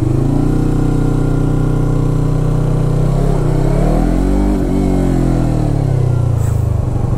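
Motorcycle engine running at steady revs, then revving up about three and a half seconds in and easing back down by about six seconds.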